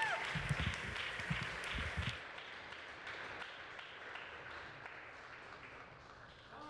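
Audience applauding, the clapping thinning out and fading away over several seconds.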